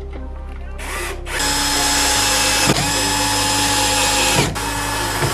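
Cordless drill-driver driving screws through a plastic shelf bracket into a plywood shelf: a short burst, then a longer run of several seconds, a brief stop, and another run near the end, with a steady motor whine.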